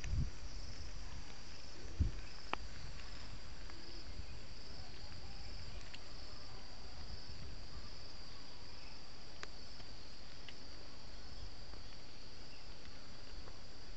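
Steady high-pitched insect chorus with a slight pulse, with a couple of dull low bumps near the start and about two seconds in.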